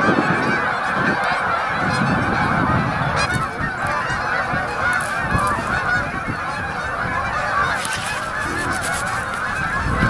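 A huge flock of Canada geese honking, hundreds of calls overlapping into one continuous clamour.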